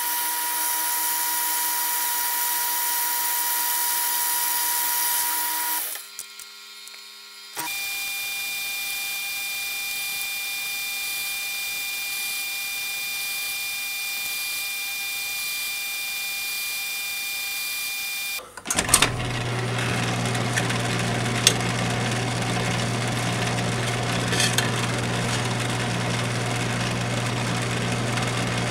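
Metal lathe running steadily, its motor and gearing giving a constant whine. The sound drops briefly about six seconds in. About two-thirds of the way through it changes to a louder, deeper steady hum with a few sharp ticks.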